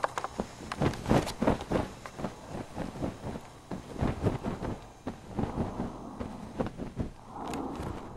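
A rapid, uneven run of sharp taps and thumps, several a second, with a brief softer rustling stretch near the end.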